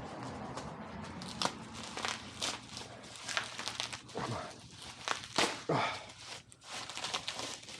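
Packaging being handled and pulled apart: irregular rustling, crinkling and short tearing noises as the wrapping is opened.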